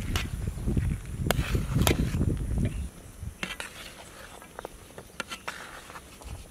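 Chopped vegetables being spooned and mixed by hand in a large steel platter. A rustling with a few sharp clicks, louder for the first three seconds, then fainter.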